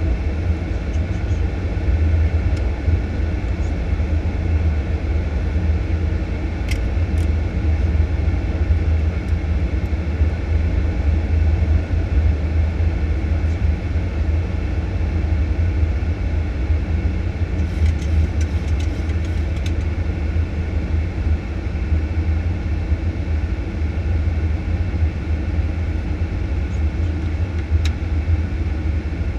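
Steady low rumble of airflow and engine noise inside a Boeing 737-800 cockpit on approach, with a few faint ticks, most of them about two-thirds of the way through.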